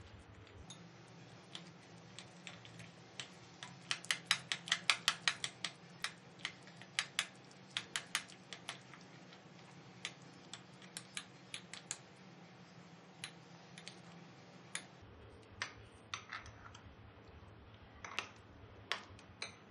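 Spoon clicking against the sides of a bowl while stirring a rice-and-gram-flour batter. A quick run of taps, about four or five a second, comes a few seconds in, followed by slower, scattered taps.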